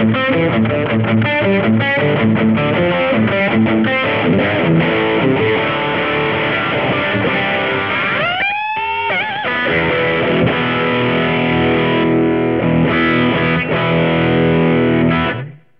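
High-gain distorted electric guitar through a tube amp's ultra-gain channel with a Fender Engager Boost pedal in front: a quick riff of short struck notes, a rising string bend about eight seconds in, then a held chord that rings until it cuts off abruptly near the end.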